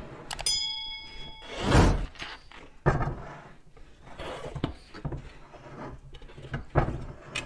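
Steel tire iron prying the tire bead off a spoked motorcycle rim: a string of thunks and knocks as the bead is broken, with a short metallic ring just under half a second in and the loudest thump about two seconds in.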